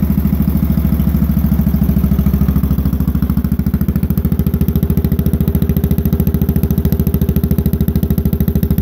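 Small air-cooled engine of a Bantam 8000 garden tractor running steadily through a 1.5-inch exhaust pipe that exits at the rear, heard close to the tailpipe as a fast, even train of exhaust pulses.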